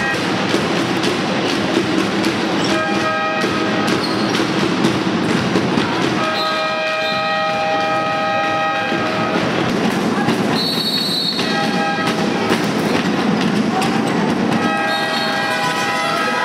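Music: sustained horn-like chords come and go every few seconds over a busy, noisy backing with a steady stream of sharp hits.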